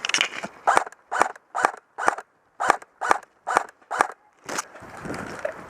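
Brisk footsteps, about two steps a second, each a short rustling crunch.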